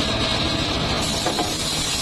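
The engine driving a homemade circular sawmill rig, running steadily.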